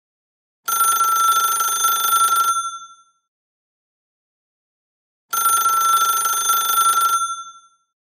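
Telephone ringing: two rings of about two seconds each, with a pause of nearly three seconds between them, each ring a bright, fluttering tone.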